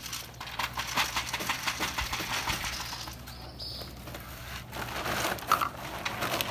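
Crinkling and crackling handling noises with many small clicks, as plastic and wire are handled while fitting a PVC-pipe dispenser. A brief high chirp sounds about halfway through.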